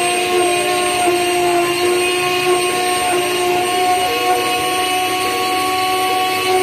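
Rotary tool running as the spindle of a small desktop CNC router, its bit engraving a logo into a log slice: a steady motor whine with a light cutting hiss.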